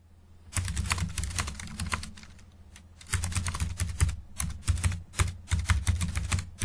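Rapid typing: a quick run of key clicks from about half a second in, a lull of about a second, then a second run of clicks.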